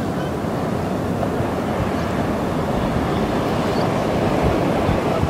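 Pacific Ocean surf breaking, a steady rushing noise without pauses.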